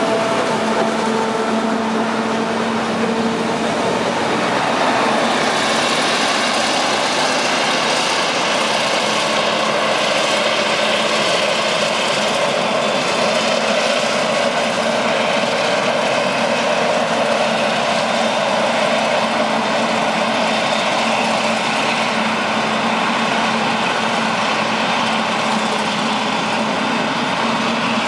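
Claas Jaguar 970 self-propelled forage harvester chopping maize and blowing the silage into a trailer alongside, with the tractor engine running close by: a loud, steady machine noise. An engine's steady hum stands out for the first few seconds, then a dense rushing noise takes over and holds.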